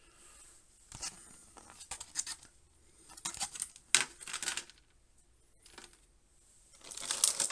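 Scrapes, rustles and clicks of a Pokémon card collector tin and its packaging being handled and opened, with a sharp click about four seconds in and louder crinkling near the end.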